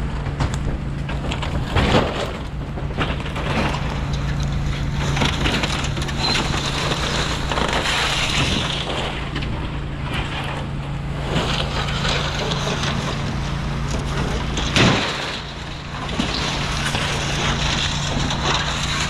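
A steady engine drone runs under wind on the microphone. Over it come scattered crunches and clatters of burned debris and corrugated tin sheets being walked over and moved, the loudest knocks about two seconds in and near fifteen seconds in.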